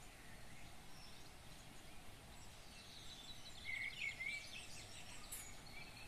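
Birds chirping over faint outdoor background noise, with a quick run of high chirps about three to four seconds in.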